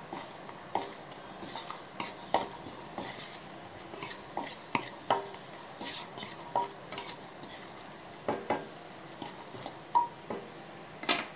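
Wooden spatula stirring cashew pieces frying in ghee in a nonstick pan: irregular knocks and scrapes against the pan, about one or two a second, each ringing briefly, over a faint sizzle.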